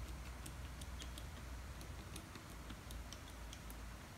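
Faint, irregular clicks of the channel push buttons being pressed one after another on a wireless fireworks firing system remote, several a second, over a low steady hum.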